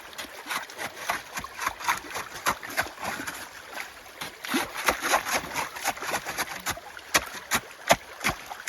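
Shovel working slush and ice through running meltwater in a ditch: repeated irregular splashes and scrapes, several a second, over the rush of flowing water.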